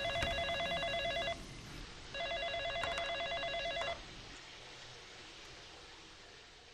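Telephone ringing twice with a fast electronic trill, each ring just under two seconds long with a short gap between, then the low background hum fades out.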